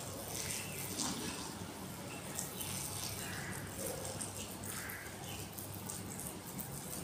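Water poured in a thin, steady stream from a small handheld vessel, splashing onto the plants and ground below.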